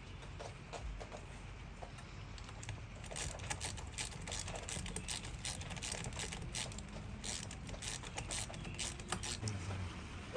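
A run of quick, irregular mechanical clicks and rattles, starting about three seconds in and stopping near the end.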